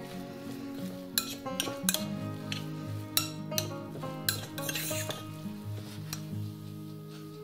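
A metal spoon stirring wet grated zucchini in a glass bowl: a soft scraping, squishing noise broken by several sharp clinks of the spoon against the glass, over steady background music.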